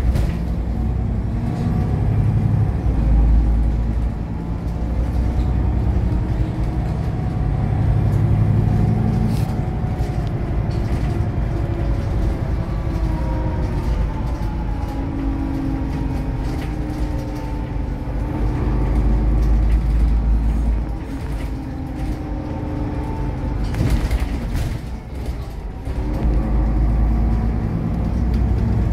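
City bus running along the road, heard from inside near the front: a steady low engine and road rumble. The engine note rises and falls as the bus speeds up and slows. A short burst of noise comes about three-quarters of the way through.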